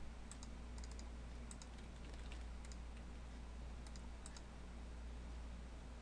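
Faint scattered clicks of a computer mouse and keyboard, several in quick pairs, with a long gap before the last pair near the end. A steady low hum runs beneath.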